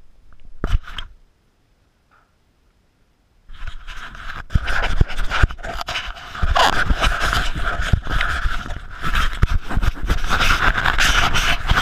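Cloth towel rubbing and scraping over a GoPro HERO3 right at its microphone as it is dried by hand, giving dense, close handling noise with many small clicks. It starts after a couple of seconds of near silence.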